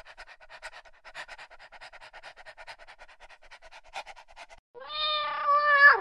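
A dog panting rapidly, then a cat giving one long meow about five seconds in. The meow is the loudest sound, and its pitch drops as it ends.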